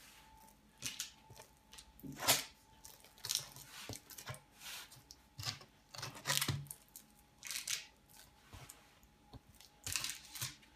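Metal spatula and knife scraping over a jam-covered sponge cake sheet on parchment paper in short, irregular strokes.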